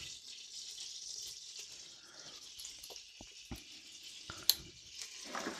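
Melted butter with spices sizzling faintly in a pressure-cooker pot, a thin hiss that fades a little after the first second or so. A handful of light clicks and knocks of kitchen utensils sound through the middle.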